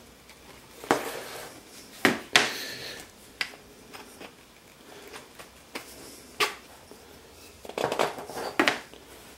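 Irregular hard clicks and knocks, about eight in all, of small wooden parts and a bolt being handled and fitted together.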